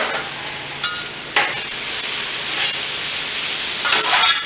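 Sausage, peppers and onions sizzling in oil on a hot flat-top griddle, with a few clicks and scrapes of a metal spatula as the food is turned, about a second in and again near the end.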